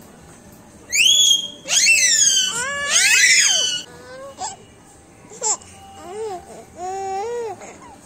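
A toddler's high-pitched squeals, sweeping up and down in pitch for about three seconds, followed by softer babbling sounds.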